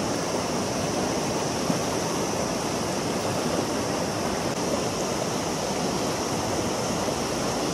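River water rushing steadily, a continuous even roar.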